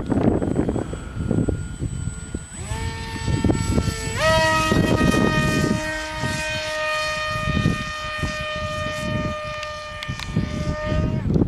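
Electric motor and propeller of a radio-controlled model aircraft whining at high throttle. Its pitch steps up about two and a half seconds in and again about four seconds in, then holds steady before cutting off near the end. Wind buffets the microphone underneath.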